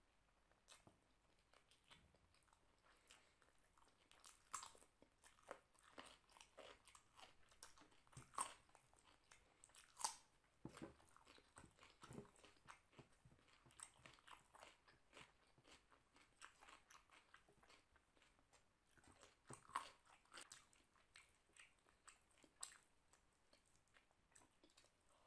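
A person chewing and crunching food with the mouth: rice eaten by hand and bites of fresh cucumber, an irregular run of short crisp crunches and wet mouth clicks, the loudest about ten and twenty seconds in.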